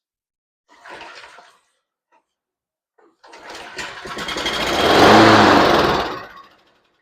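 Briggs & Stratton engine of a John Deere JS45 walk-behind mower being pull-started with carb cleaner sprayed into the air intake after years of sitting: it catches and runs for about two seconds, building up and then dying away as the cleaner burns off. A brief short noise comes about a second in.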